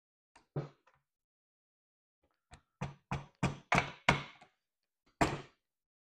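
Sharp knocks of a hand tool striking a metal seat frame on a folding table while upholstery is worked over it. There is one knock about half a second in, then a quick run of five knocks about three a second, and a last, loudest knock about five seconds in.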